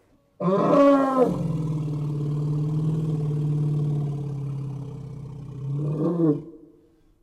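Sumatran elephant calling. A loud trumpet with a bending pitch starts about half a second in. A long, steady, low rumbling call follows for about five seconds. It ends with a second, shorter rising-and-falling call.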